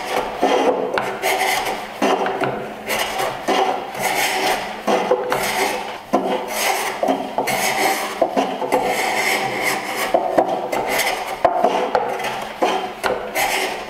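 Small block plane shaving the bevelled end grain of a board held in a miter jack, in repeated push strokes about once a second.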